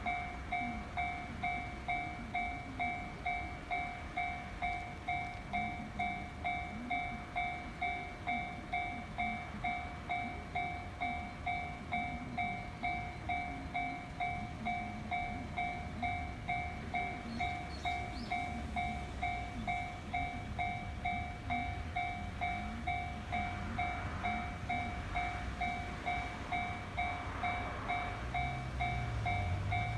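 Japanese railway level-crossing alarm bell ringing its steady electronic 'kan-kan', just under two strikes a second. A rumble grows over the last few seconds, as of a train drawing near.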